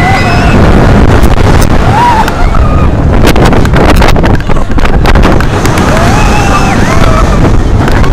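Roller coaster ride heard from an onboard microphone: heavy wind buffeting the mic over the rumble of the car on its steel track. A stretch of clattering comes in the middle, and riders shout out about two seconds in and again near the end.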